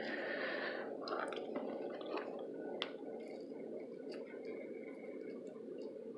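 Close-miked wet chewing and mouth sounds: soft squishy smacks and small clicks, a denser burst in the first second, over steady background noise.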